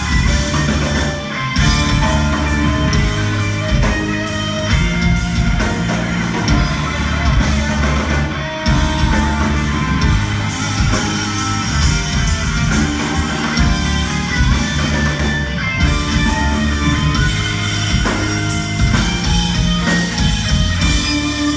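Live metal band playing an instrumental passage: electric guitar, bass and drum kit, steady and loud throughout.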